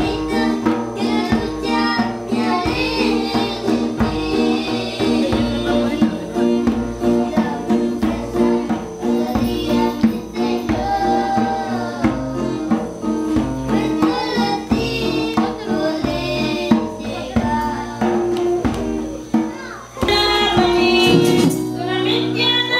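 Children singing a worship song into microphones, accompanied by acoustic guitar, with a jingling percussion along with it.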